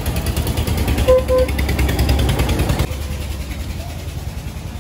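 A vehicle's engine and road rumble on the move, with two short beeps about a second in. The rumble eases a little about three seconds in.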